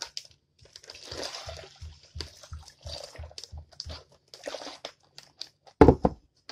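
Plastic freezer bag crinkling as it is handled and opened, then a loud knock just before the end.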